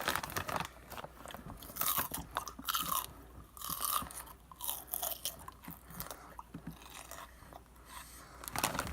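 A person chewing and eating close to the microphone: irregular wet mouth clicks and small crunches, with a few louder bites about two and four seconds in.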